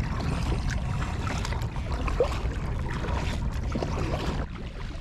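Kayak being paddled: water splashing and dripping from the paddle blades with scattered small clicks, over a steady low rumble. The splashing noise falls away shortly before the end.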